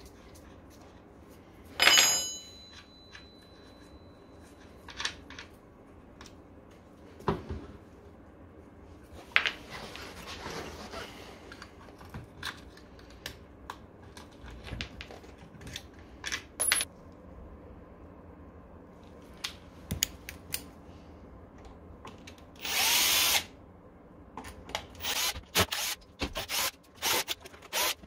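Repair work on an electric scooter's rear hub motor: scattered clicks and knocks of tools and metal parts, a loud ringing metallic clang about two seconds in, and a brief loud burst of a power tool near the end, followed by quick clicks.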